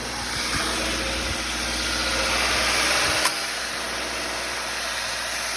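Car engine idling steadily, with a single sharp click about three seconds in.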